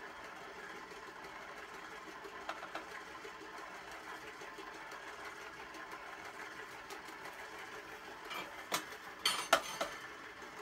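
Stand mixer motor running steadily as it beats a powdery bath bomb mixture of baking soda and citric acid. A few sharp knocks and clatters come near the end.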